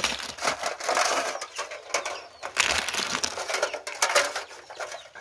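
Snail shells clicking and clattering against each other and a plastic mesh basket as a hand stirs through them, a dense, uneven run of clicks.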